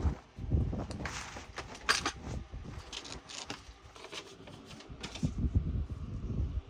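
Handling and rummaging through plastic drill bags and containers: irregular rustling with small clicks and knocks, and a few heavier thumps near the start and again near the end.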